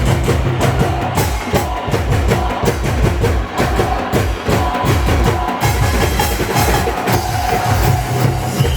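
Loud music with a busy, steady drum beat under a held melody line.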